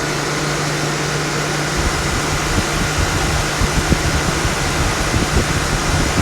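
1973 Gibson 8000 BTU window air conditioner switched to high fan: the level steps up at the start and it runs with a steady hum and rushing air. From about two seconds in an uneven low rumble joins it.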